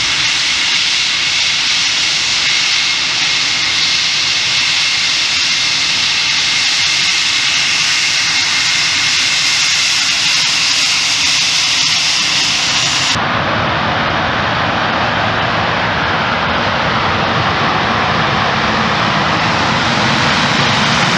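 English Electric Lightning's twin Rolls-Royce Avon turbojets running at taxiing power: a loud, steady high whine over a rushing noise. About thirteen seconds in, the sound changes abruptly to a fuller, lower rush of jet noise.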